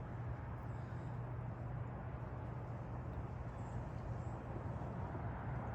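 Steady outdoor background: an even low hum with a faint high chirp or two.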